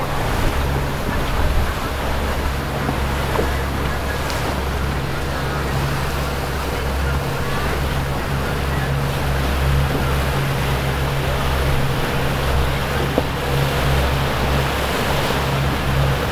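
A motorboat engine running at a steady low hum under the rush of water along the hull.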